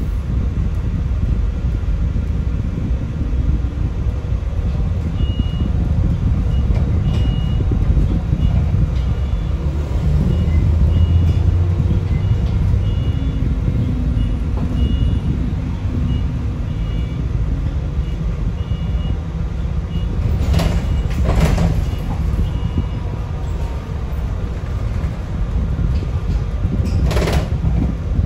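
Sunwin SWB6127EV electric bus heard from inside while driving: a steady low rumble of road and running noise. A string of short, high electronic beeps runs through the first half, and two short hisses of released air come about 20 and 27 seconds in.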